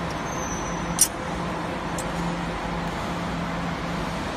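Steady workshop background noise with an on-off low hum. A single sharp metallic click about a second in, and a fainter one about two seconds in, as a bent steel tube is set into a clamping fixture.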